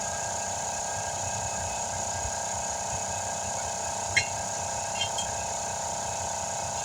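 Air compressor running with a steady, even hum while a tire inflates toward about 38 psi. A sharp click comes about four seconds in, and two lighter clicks follow a second later.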